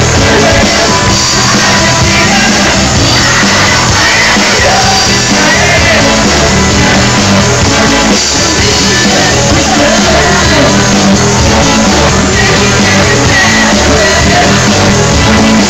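Live rock band playing loud and steady, with electric guitars, bass and drums under singers singing and shouting into microphones.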